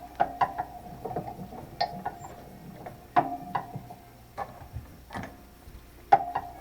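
Irregular sharp metallic taps and clicks, several close together and then pauses, the louder ones ringing briefly at the same pitch, like hand tools or a metal part being tapped and handled.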